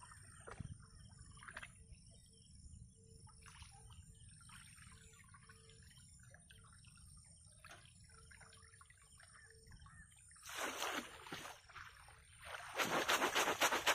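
Shallow paddy-field water trickling and lapping as a bamboo fish trap is handled in it, with loud splashing and sloshing from about ten seconds in, briefly and then again more heavily near the end as the trap is worked back down into the water.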